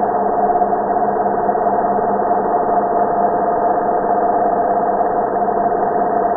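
Angle grinder running steadily, an even mechanical hum with a strong steady tone and no change in speed.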